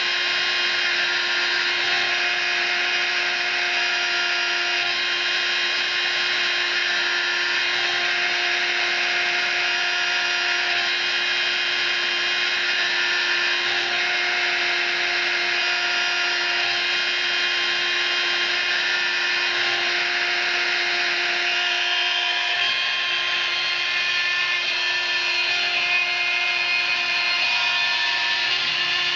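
Small high-speed rotary-tool spindle on a hobby CNC mill running steadily as its end mill cuts a hard drive platter. It makes a constant high whine, with lower tones switching on and off every few seconds as the cut goes on.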